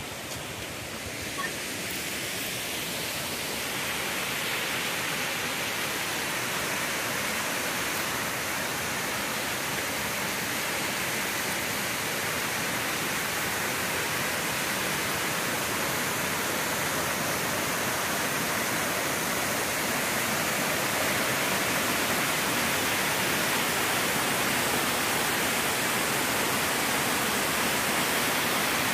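Waterfall's falling water rushing steadily, building over the first few seconds and then holding.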